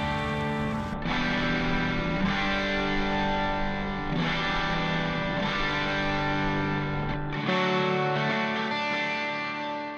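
Background music with distorted electric guitar, fading out near the end.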